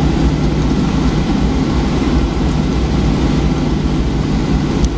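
Boeing 737-800's CFM56 jet engines at low taxi power, heard inside the cabin over the wing: a steady low rumble.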